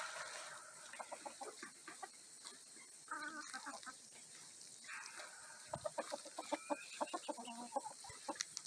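Hens clucking at a low level, with a few drawn-out calls about three seconds in and a run of quicker clucks over the second half.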